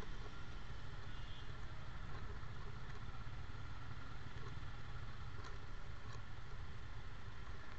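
Motorcycle and scooter engines idling together in a crowd of stopped bikes, a steady low rumble with a few faint ticks.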